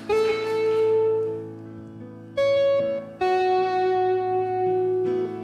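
Worship band playing an instrumental passage: a slow lead melody of a few long held notes over a steady sustained low pad.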